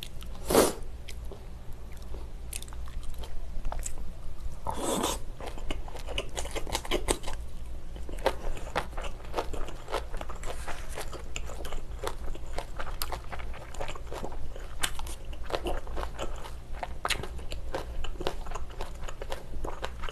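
Close-miked chewing and crunching of a mouthful of rice with kimchi, many small wet clicks from the mouth, with louder mouth sounds just after the start and about five seconds in.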